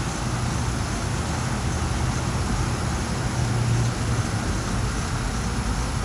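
Steady low rumble of road traffic, swelling a little about halfway through.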